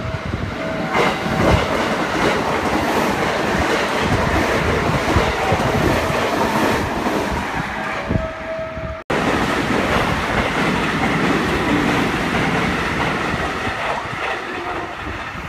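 JR West 223/225-series electric trains running at speed: a train rushes through with a rapid, uneven clatter of wheels over the rail joints. After a sudden cut about nine seconds in, another train's steady running noise follows as it approaches.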